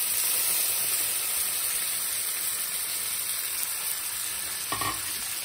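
Lime juice hitting hot oil in a frying pan, sizzling and bubbling with a steady hiss that slowly eases off.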